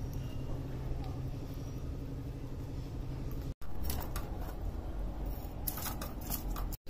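Steady low background rumble, with a few clicks and taps in the second half; the sound drops out for an instant twice at edit cuts.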